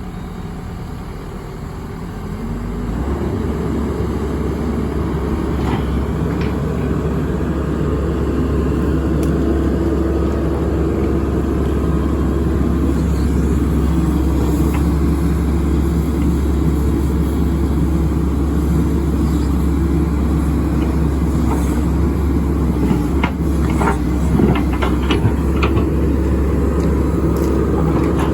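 Diesel engine of a Hyundai R130LC-3 13-tonne excavator running; about two to three seconds in the engine speed rises, and it then runs steadily at the higher speed. A few short knocks come near the end.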